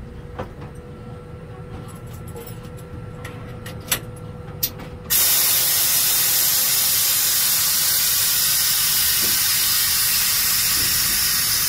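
A few sharp clicks of controls in the cab of an EF63 electric locomotive, then about five seconds in a loud, steady hiss starts abruptly and keeps going.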